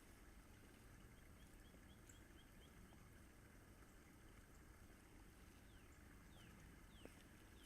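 Near silence: faint outdoor background hiss with a few faint, quick bird chirps, a short run of them about two seconds in and single ones near the end.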